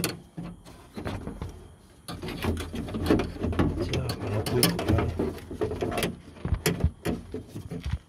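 Metal clicks, knocks and rattling from a hand working the door handle and lock linkage inside a BMW E36 door shell, with several sharp clicks near the end.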